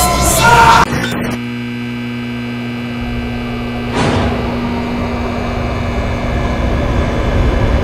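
Steady electrical hum and buzz of fluorescent ceiling lights, following a louder sound that cuts off about a second in. A sudden hit comes about four seconds in, and a low rumble builds near the end.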